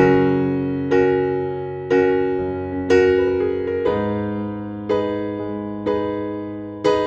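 Background music: electric piano playing chords struck about once a second, each note fading before the next.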